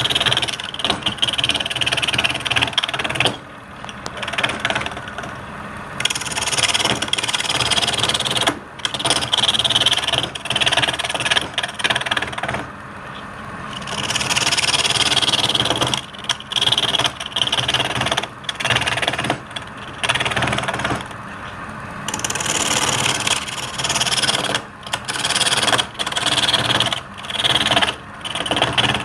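Wood lathe running, with a turning tool cutting into the spinning wood over the steady hum of the lathe motor. The cutting noise breaks off for a second or two several times between passes.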